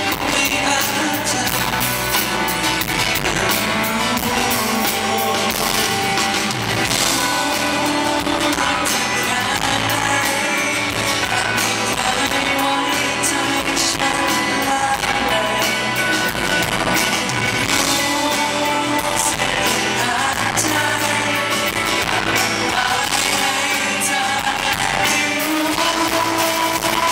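A man singing a pop-rock song live into a microphone, backed by an electric guitar and a full band; the music plays continuously at a steady level.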